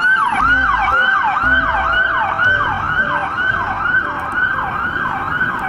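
Toy police car's electronic siren wailing in fast, evenly repeating sweeps, about two and a half a second.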